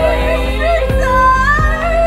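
Background music: a sung melody with gliding notes over sustained chords and a steady beat.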